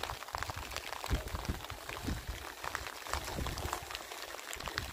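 Rain pattering: a dense, irregular crackle of small taps.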